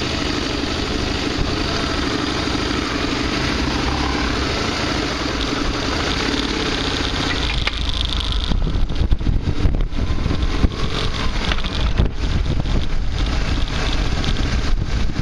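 Motorcycle engine running at low speed as the bike pulls away. From about eight seconds in, wind rumbling and crackling on the microphone takes over as it gathers speed.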